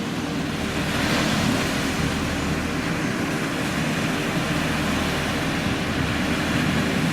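Sea surf washing steadily, with a faint steady hum underneath.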